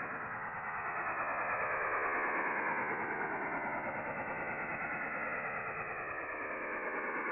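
French Navy STANAG 4285 HF data signal received in sideband on 8646 kHz: the modem's continuous hissing, buzzy rush of phase-shift keying, cut off sharply at the top by the receiver's audio filter. Slow falling swishes sweep down through it every second or so as the signal fades selectively on its skywave path.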